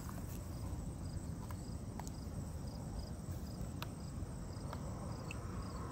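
Outdoor ambience: a steady low rumble with faint high chirps repeating every half second or so, and a few sharp clicks scattered through.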